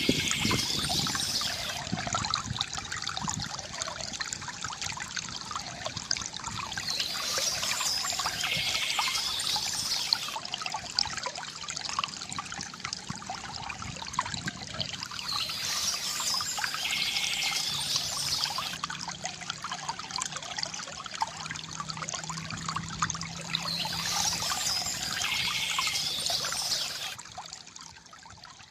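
Water from a bamboo fountain trickling and pouring steadily, with bird chirping in four similar bursts about eight seconds apart. The water fades down near the end.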